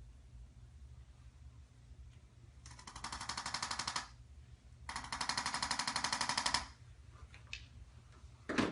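Handheld electric chiropractic adjusting instrument firing two bursts of rapid, evenly spaced mechanical clicks, each lasting about a second and a half, the second a little longer and louder.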